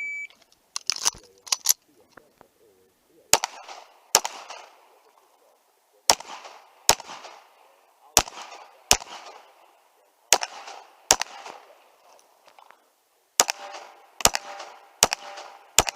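An electronic shot timer beeps once, then a handgun fires about fifteen shots, mostly in quick pairs with short pauses between them, in an IPSC course of fire. The last few shots are followed by a lingering metallic ring, like steel targets being hit.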